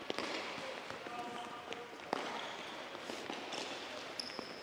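Soccer ball dribbled on an indoor court floor: scattered light taps and thuds of ball touches and footsteps, a sharper one about two seconds in, with faint voices in the hall behind.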